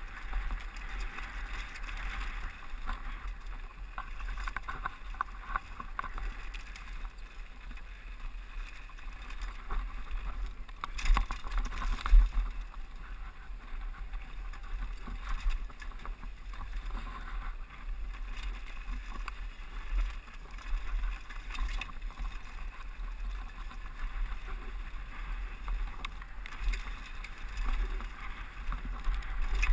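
Downhill mountain bike rolling fast over loose rocky dirt: a steady rumble of tyres on gravel with frequent small rattles and clicks from the bike, and a burst of louder knocks and clatter about eleven to twelve seconds in. Wind buffets the helmet-mounted action camera's microphone, adding a low rumble.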